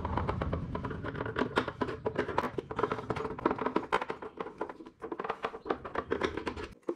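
Irregular clicks and taps of hand tools against plastic body parts as the footrest panel of a Razor Dirt Quad electric ATV is worked loose to reach the battery, over a low rumble that stops abruptly near the end.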